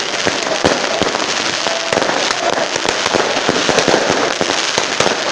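Fireworks and pyrotechnics crackling loudly: a dense, unbroken stream of rapid pops and bangs.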